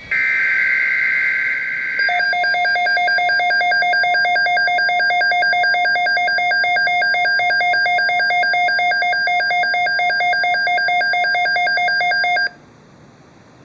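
Emergency Alert System weather-radio alert: about two seconds of screechy digital data tones (the SAME header that encodes the alert), then a rapidly pulsing electronic alert beep for about ten seconds that cuts off suddenly.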